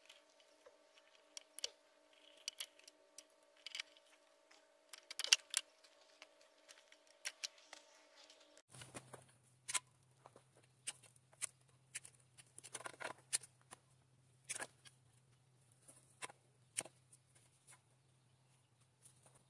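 Scattered sharp clicks and light metallic clinks of hand tools and small metal parts being handled, over a faint steady hum that drops to a lower hum about nine seconds in.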